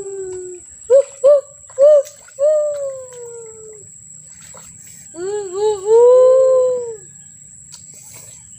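Children's wordless vocal calls. Three short sharp calls come about a second in, then a longer call that falls in pitch, then a run of rising-and-falling calls around five to seven seconds in. A thin steady high whine runs underneath.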